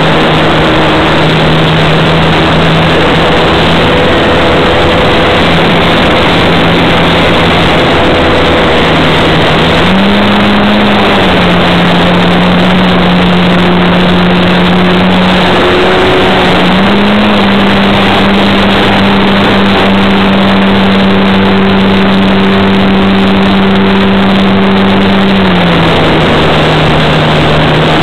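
Model airplane's motor and propeller, heard loud and close through an onboard camera's microphone: a steady drone over a rushing noise. The drone's pitch steps up a little about ten seconds in, drops back, rises again a few seconds later and falls near the end as the throttle changes.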